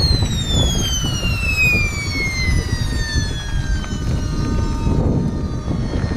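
SWIWIN 190N model jet turbine in a T1 RC sport jet, its high whine falling steadily in pitch for about four seconds as it spools down, then holding at a lower steady whine. Wind rumbles on the microphone underneath.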